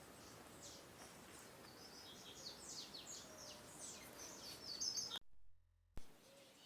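Small songbirds chirping: series of short, high, quickly falling notes over faint background hiss. About five seconds in, the sound cuts out completely for under a second and returns with a click.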